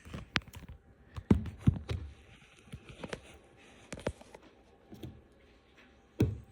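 Plastic Lego model being handled, giving irregular light clicks and knocks about a second apart or more.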